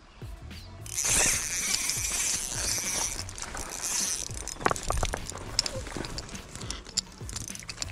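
A hooked trout splashing in shallow water at the bank's edge, starting abruptly about a second in, followed by a few sharp clicks and knocks.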